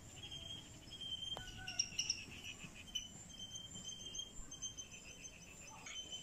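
Crickets chirping in a steady, repeating high trill.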